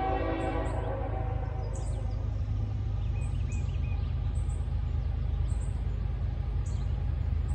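Distant Norfolk Southern locomotive air horn sounding a chord that fades out about a second in, followed by a steady low rumble as the train approaches. Short, high chirps repeat throughout.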